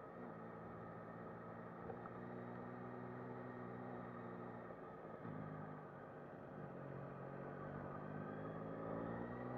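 Yamaha MT-09 SP's inline three-cylinder engine running at low road speed, heard from the rider's seat. The engine pitch jumps and settles about five seconds in, then rises steadily near the end as the bike accelerates.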